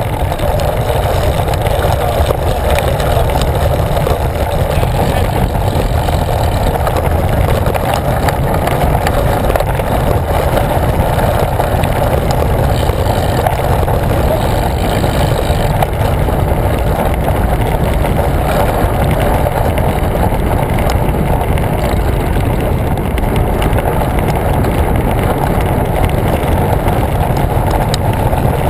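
Wind rushing over a handlebar-mounted action camera's microphone while a road bike rolls along at speed: a steady, loud, unbroken rush.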